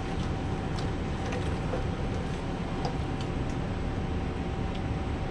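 Steady rushing drone of commercial kitchen equipment with a faint constant tone in it, and a few light clinks of a metal fork and spoon against a cooking pot.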